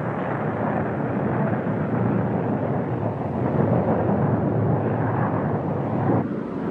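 A Grumman F-14 Tomcat's twin jet engines in flight, a steady rushing rumble that changes character slightly about six seconds in.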